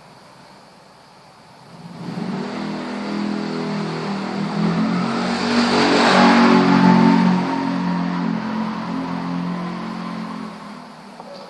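A motor vehicle passing by. Its engine grows louder from about two seconds in, is loudest around the middle, then fades away near the end.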